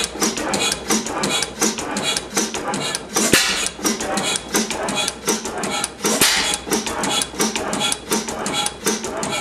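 1911 Schlüter stationary gas engine running: a steady rapid clatter of valve gear and moving parts, with a heavier bang about every three seconds as it fires.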